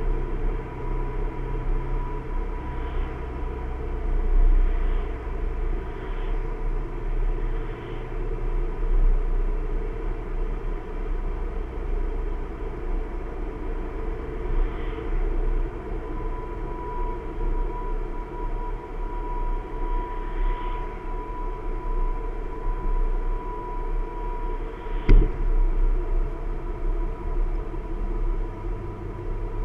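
Car driving along a paved road, heard from inside the cabin: steady engine and tyre rumble with road noise and a thin steady whine. A single sharp knock comes about 25 seconds in.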